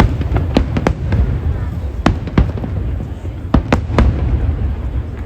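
Aerial fireworks bursting overhead: about eight sharp bangs, several in quick pairs, over a steady low rumble.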